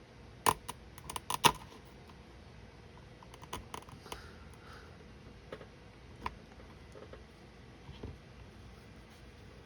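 Small, sharp clicks and snaps of 3D-printed support pieces being cut and broken away from a model ship funnel by hand. The loudest cluster comes about a second in, with scattered single snaps after.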